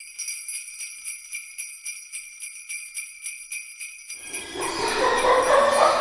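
Sleigh bells shaken in a steady rhythm, about four shakes a second. About four seconds in, a rising swell of noise builds up under them and grows louder toward the end.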